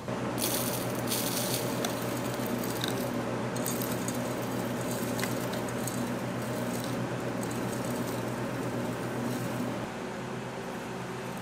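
A machine motor running with a steady hum, with clicking and rattling over the first few seconds; it gets quieter about ten seconds in.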